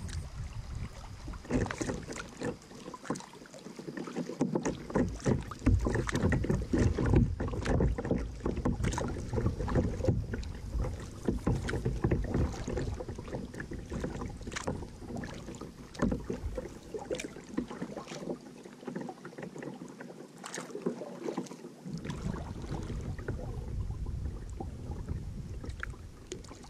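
Paddles dipping and splashing in river water as a canoe or kayak is paddled, with irregular splashes and knocks.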